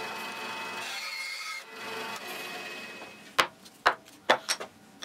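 Bandsaw cutting through a small wooden drawer blank, a steady run that stops about three seconds in. Then five sharp wooden knocks as the cut pieces are handled and set down on a workbench.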